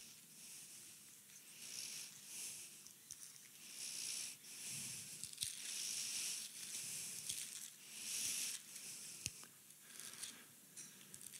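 Thin Bible pages being turned by hand, a series of soft, faint rustles about one a second, with a single sharp click about nine seconds in.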